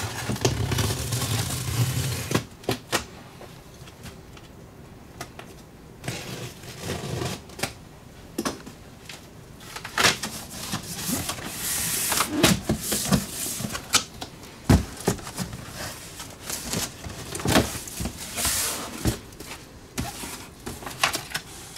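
A cardboard shipping box being opened and unpacked by hand: rustling and tearing of cardboard and packing with scattered knocks and clunks as the parts are handled. A low hum sounds during the first couple of seconds.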